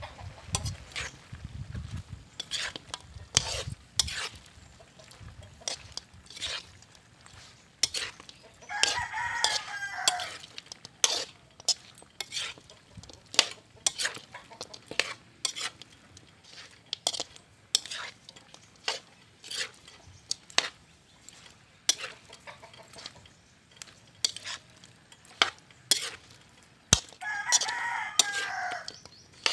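A metal ladle stirring chunks of duck in a large aluminium wok, scraping and clinking against the pan in many short knocks. A rooster crows twice, about nine seconds in and again near the end.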